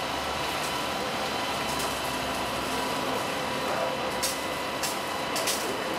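Steady rushing of a fire hose spraying water onto a burning pile of pallets, with a fire truck's engine running steadily underneath. A few sharp crackles come from the fire about four to five and a half seconds in.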